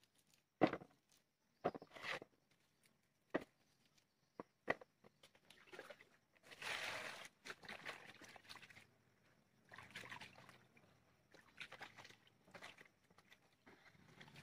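A few round items dropped one at a time into a plastic basin of water, each a short plop or knock. About six seconds in, hands start sloshing and rubbing them in the water, splashing loudest a second later.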